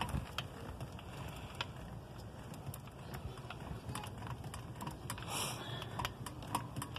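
Hand crank of a camper trailer's tongue jack being turned, giving a string of light, irregular clicks from the jack's gearing as it lifts the trailer coupler off the hitch ball.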